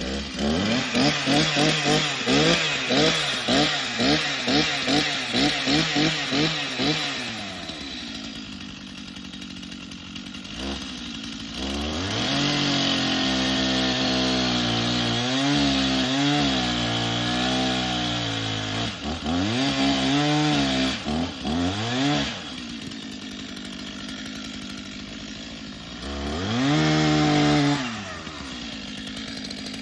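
Two-stroke chainsaw being revved in quick throttle blips, then cutting into the trunk for about ten seconds, its pitch sagging and recovering under load. It drops back to idle between spells and revs once more near the end.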